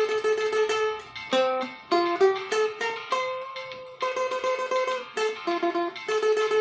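Cavaquinho playing a slow hymn melody, each held note picked in quick repeated strokes.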